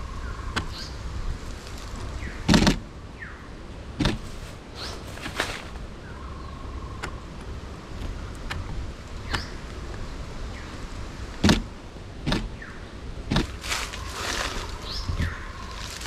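Camera shutter firing single shots every second or so as a perched bird is photographed, over a low rumble of wind on the microphone. Faint bird calls in the background.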